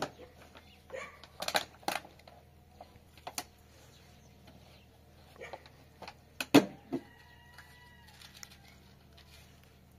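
Scattered knocks and clatters, like objects being handled, the loudest about six and a half seconds in.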